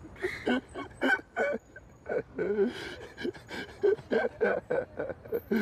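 A man's voice chuckling and talking too indistinctly to make out words.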